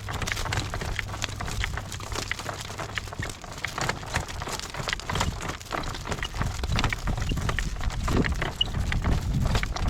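A driving horse's hooves clopping steadily on the ground, with many short clicks and rattles, over a low rumble of wind on the microphone.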